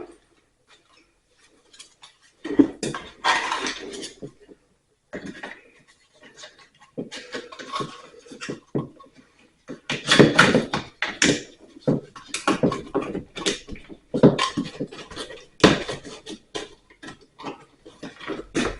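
Hand work on electrical cable and an outlet box: scattered metallic clicks, knocks and rustling as the wire is trimmed and handled, in a small room.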